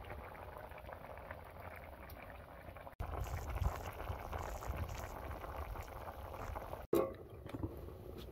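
Curry bubbling at a rolling boil in a metal pot over a wood fire. It is a steady, dense bubbling that grows louder about three seconds in, with a few light clicks near the end.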